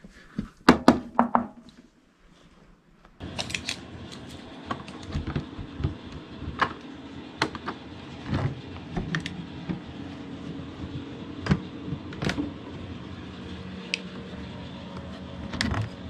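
Handling noise from a portable fridge/freezer: a few sharp clicks near the start, then over a steady low hum scattered clicks and knocks as the lid latch is worked and the lid and wire basket are moved.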